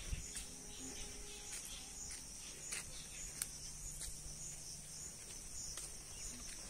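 Insects calling in a steady, high-pitched chorus with a gentle regular pulse, over faint scattered ticks.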